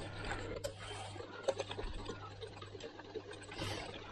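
Light, irregular clicking of a whisk against a saucepan as cold butter is whisked into an egg-yolk sabayon sauce, over a low steady hum.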